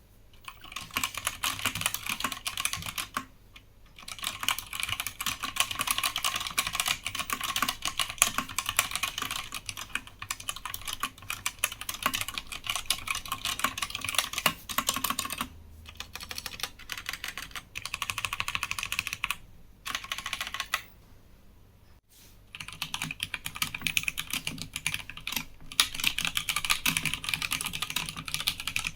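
Fast typing on a Krux Atax Pro Retro mechanical keyboard, a dense run of keystroke clacks with a few short pauses. For the first 22 seconds or so the keyboard has Outemu Black linear switches. After that it is the version with factory-lubed Gateron Yellow Pro linear switches.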